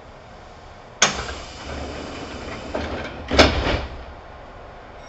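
Kintetsu 2800 series train's sliding passenger doors closing: a sudden loud start about a second in, a rumble as the doors run, then a heavy thud as they shut about two and a half seconds later.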